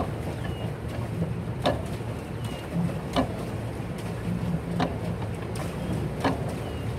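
Pedal boat under way: a steady low rumble of water and wind, with a sharp click about every second and a half from the turning pedal drive.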